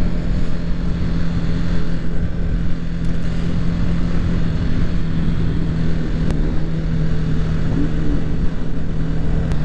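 Motorcycle engine running at a steady, unchanging speed, with road and wind noise, heard from the rider's own bike.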